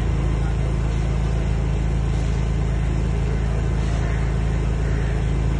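10 kW soundproof portable petrol generator running at a steady speed, a constant low engine hum with no change in pitch or level.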